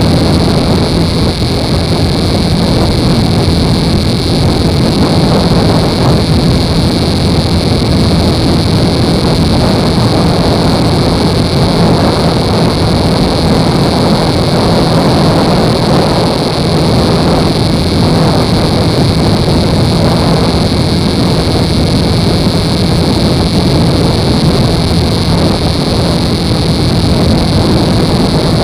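Steady rush of wind and road noise from a vehicle cruising at highway speed, with a low steady engine hum underneath.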